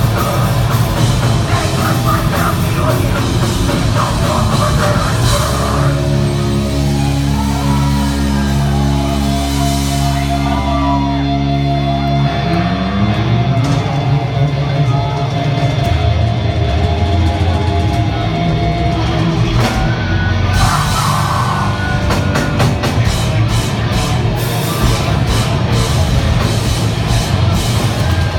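Live heavy metal band playing loud, with distorted guitars, bass and drums. About five seconds in a low chord is held for several seconds, then slides down in pitch before the full band with cymbals comes back in.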